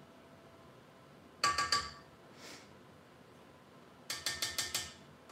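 A spatula clinking against the stainless steel bowl of a stand mixer, in two short runs of quick taps about two and a half seconds apart, four or five taps each, the metal bowl ringing briefly after each tap.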